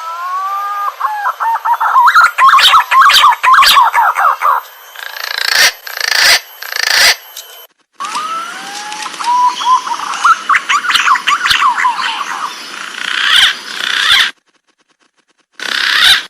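Green pigeon (punai) calling in two phrases. Each opens with rising whistles and then breaks into a rapid run of warbling notes. Between the phrases are bursts of hiss, and the sound cuts off suddenly twice.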